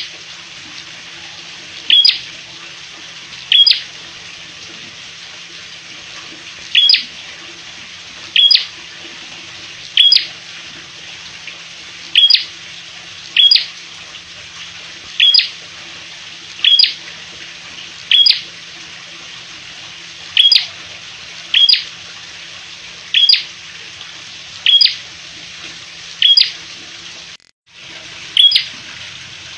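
Prenjak calling energetically: sharp, high chirps repeated about every one and a half seconds, each a quick pair of notes, over a steady background hiss and hum.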